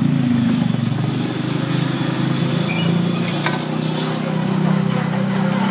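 Steady low mechanical rumble, engine-like, with a brief clink about three and a half seconds in.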